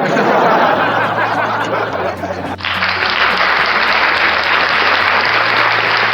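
Canned applause sound effect from a V8 sound card, starting suddenly and loud, switching to a second applause clip a little over two seconds in, over a faint low music bed.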